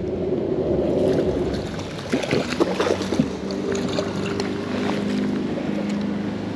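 An engine droning steadily from about three seconds in, over wind and water noise, with a few sharp clicks and knocks shortly before it.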